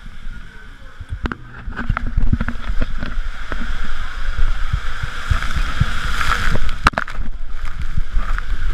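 Water rushing and a rider's body bumping along an enclosed tube waterslide, heard from a camera carried by the rider: a low rumble with many irregular knocks, growing louder about two seconds in.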